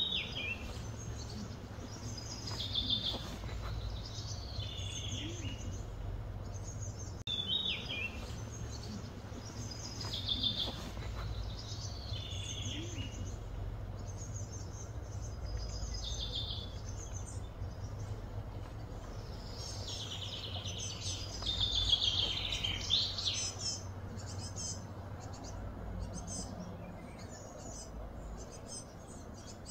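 Birds calling and chirping in short, repeated high phrases, busiest a little past the middle, over a steady low background hum.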